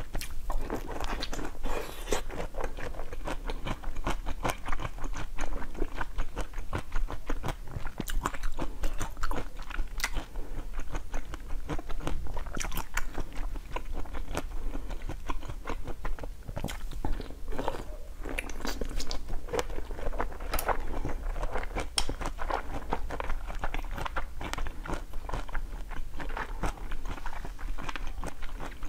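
Biting and chewing of a frozen blue ice pop set with basil seeds: continuous crisp crunching with many sharp, irregular cracks as the ice breaks between the teeth.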